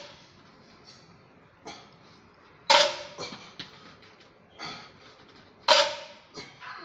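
Loaded barbell set down on a rubber floor pad during deadlift reps: two sharp clanks of the weight plates with a brief ring, about three seconds apart, with fainter short sounds between.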